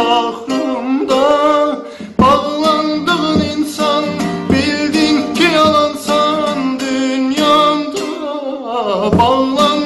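A Turkish love song sung with held, wavering notes over an acoustic guitar.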